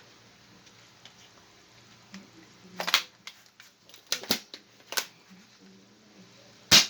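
Plastic clicks and clacks from a spring-powered Nerf Rival Knockout blaster being handled and primed, then one loud sharp snap near the end as it is fired. The shot jams: the dart does not clear the brass barrel.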